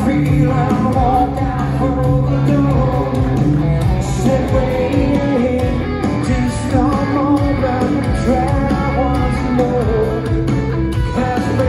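Live rock song played loud through a theatre PA: electric guitars with a male voice singing.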